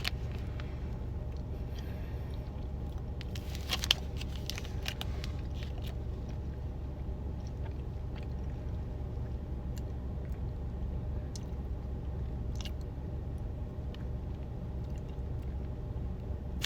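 Someone chewing a soft, marshmallow-like Built Puff protein bar, with faint scattered mouth clicks and a brief louder bite noise about four seconds in. A steady low hum runs underneath.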